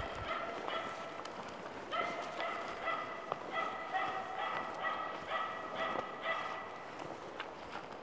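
Spitz hunting dog barking at a distance in quick, steady runs of about two to three barks a second, with a pause between runs. It is a bird-bark: the dog is holding a black grouse cock it has treed.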